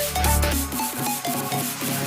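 Electronic background music with a quick melodic synth line; the deep bass drops out about a second in.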